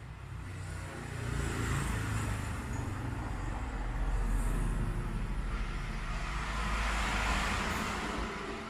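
Road traffic passing outside, a low rumble with vehicles swelling up and fading away about three times.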